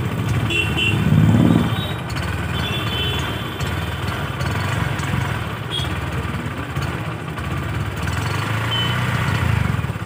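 Exhaust of a Honda CD110 Dream BS6's single-cylinder four-stroke engine running steadily, heard close at the muffler, swelling briefly about a second in.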